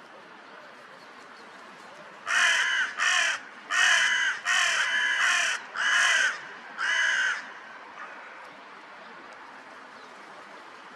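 A crow cawing, a run of about seven loud, harsh caws in quick succession, then stopping.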